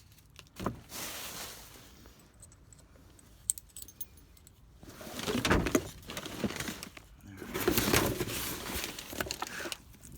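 Hands rummaging through junk and scrap in a dumpster: loose items clatter, clink and rustle, in two louder bouts about five and eight seconds in, with scattered sharp clicks between.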